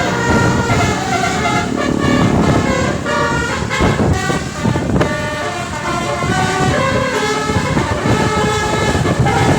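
A bus's basuri multi-tone horn playing a tune, one chord of notes after another in quick steps, over low engine and road rumble.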